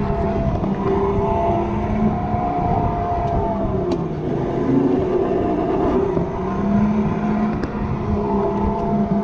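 Electric go-kart's motor whining, its pitch rising and falling as the kart speeds up and slows through the turns. Heard from on board, over a dense low rumble of tyres and wind.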